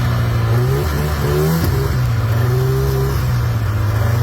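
Snowmobile engine running, its pitch climbing briefly about a second in, then dropping back to a steady run.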